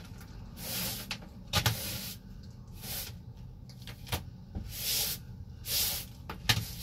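Broom bristles sweeping a bare wooden van floor: short swishes about once a second, with a few light knocks in between.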